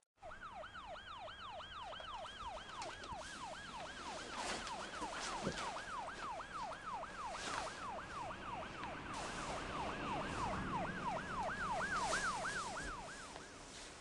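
Siren in a fast yelp pattern, its pitch falling again and again in quick repeating sweeps, about three a second. It is faint, grows a little louder toward the end and stops shortly before the end.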